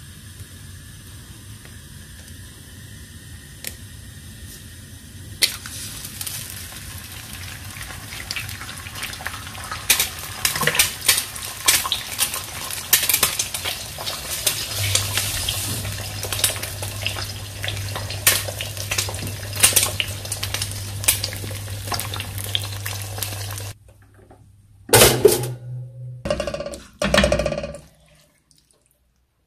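Food sizzling in a hot frying pan: a steady hiss that grows louder about five seconds in, with many sharp crackles and spits, then stops abruptly. Near the end come a few loud clatters of pans or crockery.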